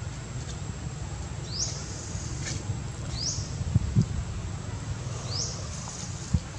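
A short high chirp rising in pitch, repeated three times about two seconds apart, from a small animal calling in the background, over a steady low rumble, with a couple of soft thumps near the middle.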